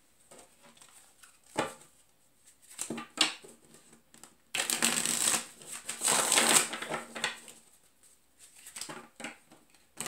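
A large deck of cards handled and shuffled by hand. A few light taps and flicks come first, then about three seconds of dense shuffling from roughly the middle on, then a few soft taps as the deck is squared and split.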